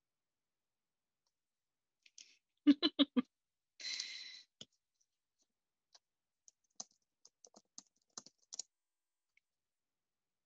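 Scattered clicks of a computer keyboard and mouse. A little under three seconds in come four quick, louder knocks, the loudest sound here, followed by a brief hiss.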